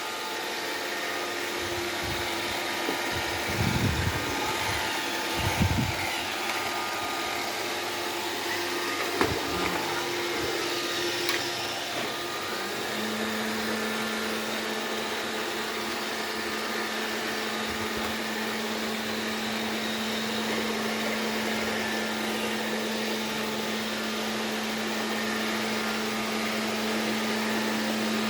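Vacuum cleaner running steadily with a hissing motor noise. There are a few low knocks in the first seconds, and a steady hum joins in about halfway through.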